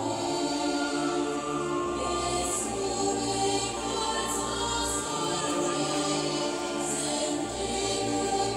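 Slow choral sacred music: voices in long held chords over a low sustained bass that moves to a new note every few seconds.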